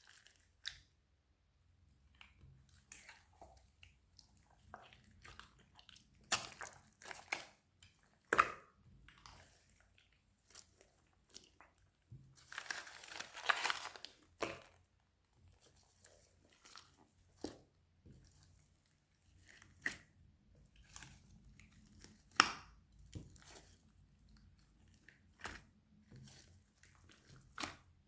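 Slime being handled and squeezed, giving scattered crackles and sharp pops, with a denser stretch of crunching lasting about two seconds near the middle.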